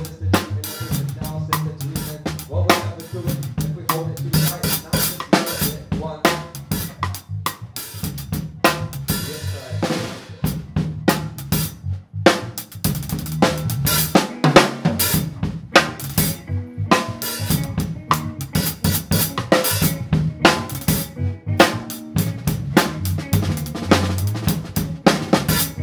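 Live funk band playing a groove, the drum kit loudest and close, with saxophone and electric guitar playing along.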